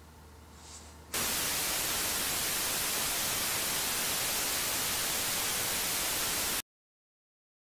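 Television-static sound effect: an even hiss of white noise that starts abruptly about a second in and cuts off suddenly near the end into dead silence. Before it, quiet room tone with a low hum.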